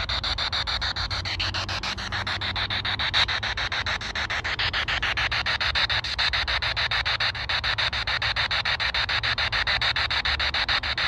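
Handheld spirit box radio sweeping through stations: a steady rush of static chopped into rapid even pulses, with no voices coming through.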